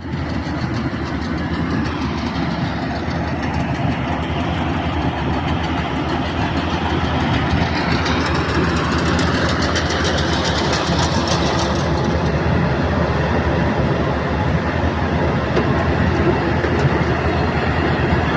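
Kubota combine harvesters running steadily while harvesting rice: continuous engine and threshing-machinery noise with a rapid clatter.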